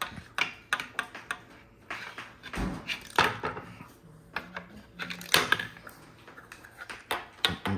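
Large plastic Connect Four discs clicking and clacking, handled against each other on a stone countertop and dropped into the game frame's slots. The clicks come in an irregular run, with a duller knock a little under three seconds in.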